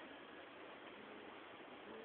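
Near silence: faint, steady background hiss with no distinct event.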